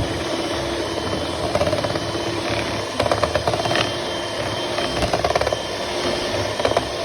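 Electric blender running steadily, grinding black-eyed beans into batter.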